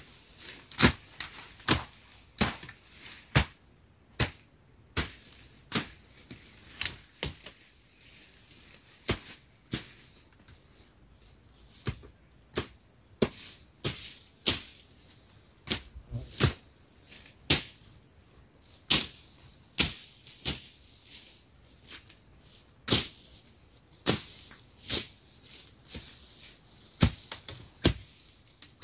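Machete slashing undergrowth: sharp cutting strokes at an irregular pace, roughly one a second, some coming in quick pairs or clusters. A steady high insect drone runs behind them.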